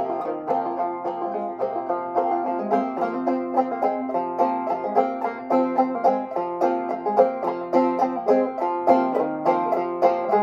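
Banjo played clawhammer style: a quick, even run of struck notes over a ringing drone note, with no voice.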